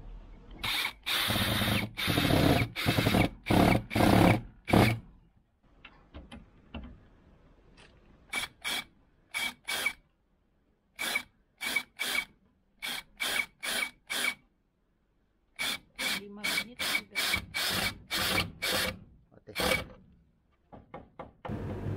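Worx WU175 cordless drill driver driving screws into wooden boards in trigger bursts. Over the first five seconds comes a run of loud bursts; after a pause come many short bursts, about two a second, each with a steady high motor whine, in two runs split by a brief pause.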